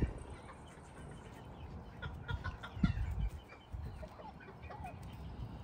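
A chicken clucking softly in short, scattered notes, with a few brief low thuds.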